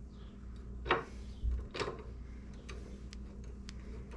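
Light metallic clicks and ticks from a hand tool fitted with an Allen socket as bolts are spun in. Two sharper clicks come in the first two seconds, then fainter, irregular ticks about every half second.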